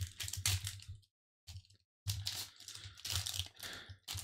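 Foil wrapper of a Pokémon booster pack being torn open and crinkled by hand: irregular crackling, with a short pause just after a second in before the crinkling starts again.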